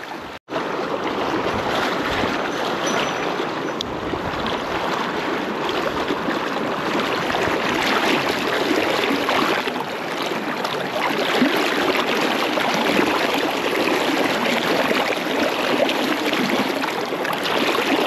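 Mountain stream water rushing steadily, cutting out for an instant just after the start.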